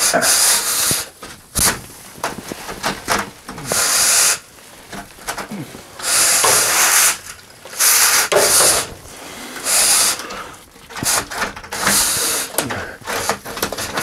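Chimney brush on a rod being pushed up and down inside a metal stovepipe, scrubbing creosote off the pipe walls in irregular scraping strokes, each a second or less.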